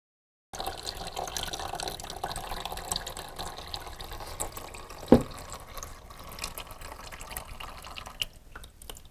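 Engine coolant draining from a motorcycle's drain into a plastic basin in a steady splashing stream, with one sharp knock about five seconds in. Near the end the flow dies down to scattered drips as the system empties.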